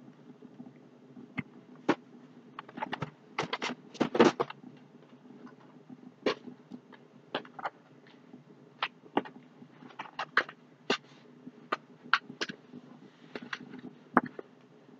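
Cardboard box and paper packaging being handled and rummaged through: scattered clicks, taps and crinkles, busiest and loudest about three to four seconds in, over a faint steady low hum.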